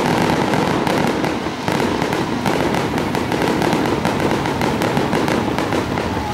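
Fireworks going off in a dense, unbroken run of rapid crackling pops, with a brief slight dip a little under two seconds in.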